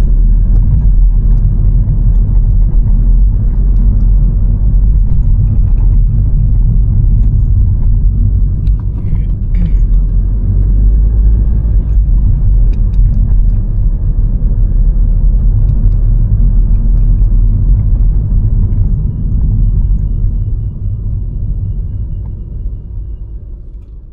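Steady low rumble of a car being driven, heard from inside the cabin, fading out near the end.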